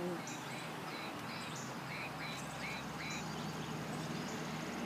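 Songbirds chirping, many short high calls repeated one after another, over a low steady hum that grows a little louder about two-thirds of the way through.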